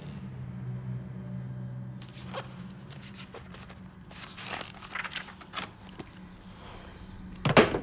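Paper pages of a thick manga paperback being riffled and turned, a series of short rustles and flicks, over a low steady hum. Two louder knocks come near the end.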